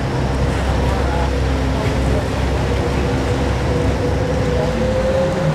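Vaporetto water bus underway, its engine running with a steady low drone and a faint whine that drifts slightly up in pitch.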